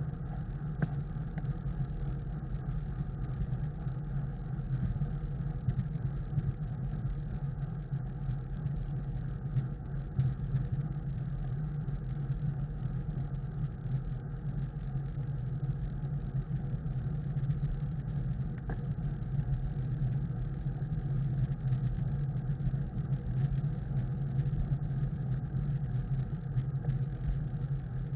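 Steady low rumble of wind and tyre noise on a bicycle-mounted camera riding on pavement at speed.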